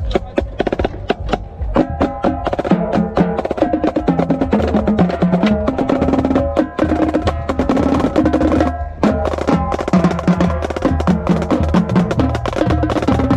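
Marching drumline playing a cadence: snare drums with rapid, crisp stick and rim clicks, and pitched tenor drums stepping between notes.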